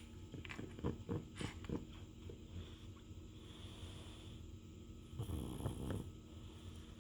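Sleeping dog snoring: a few short clicking snorts in the first two seconds, then one longer snoring breath about five seconds in.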